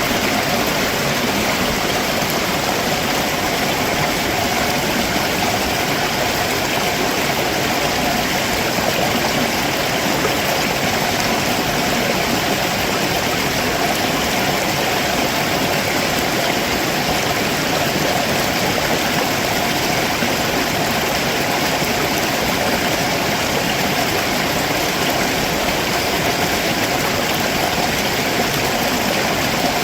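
Stream water rushing steadily over rocks below a waterfall.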